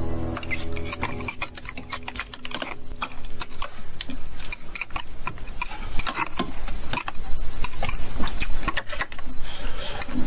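Metal chopsticks and spoons clicking and scraping against bowls and dishes as people eat, a run of many small clicks that gets busier and louder after about six seconds. Background music fades out in the first second or so.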